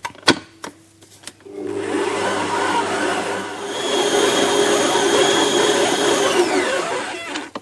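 Kenwood stand mixer with its dough hook kneading a stiff dough, after a few light clicks. The motor starts about a second and a half in, runs steadily with a whine that rises a little over halfway through, then winds down with a falling pitch near the end.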